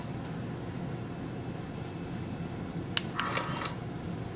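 Steady low hum of a small room with computer fans; about three seconds in a sharp click is followed by a short electronic tone lasting about half a second, and another click comes near the end, as remote-control commands register on the laptop.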